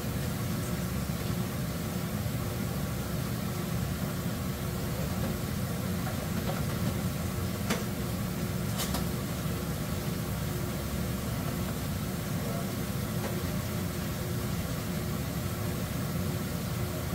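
Steady low fan-like hum with a faint constant whine, from a running kitchen appliance; two light clicks about halfway through.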